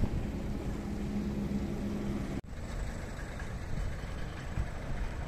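A vehicle engine running steadily with a low hum, under a rushing background noise. About two and a half seconds in there is a sharp break, after which the hum is gone and only the rushing noise remains.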